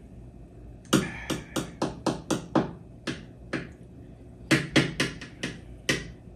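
A series of sharp knocks, about fourteen in two quick runs of roughly four a second.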